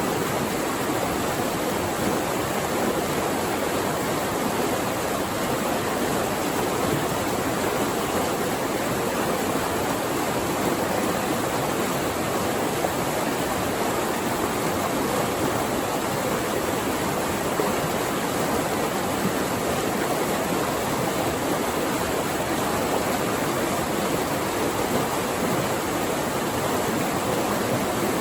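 Flowing water rushing steadily, a constant even rush with no breaks or changes.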